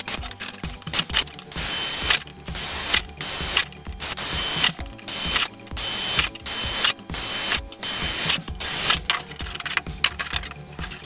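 Repeated mechanical rasping strokes, each about half a second long, coming roughly every two-thirds of a second with short gaps between them.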